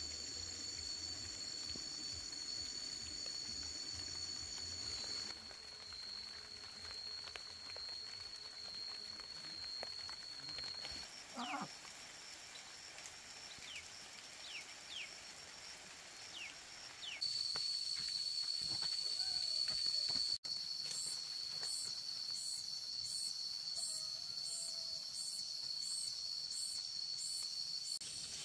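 Insects, such as cicadas or crickets, keeping up a steady high-pitched drone that shifts abruptly a few times. A few short falling chirps sound around the middle, and a pulsing high call repeats about once a second in the second half.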